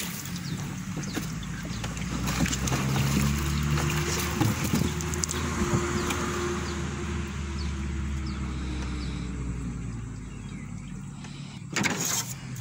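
Small boat's outboard motor running steadily at low speed, a low engine note with a slight rise and fall, with scattered knocks and a short loud burst of noise near the end.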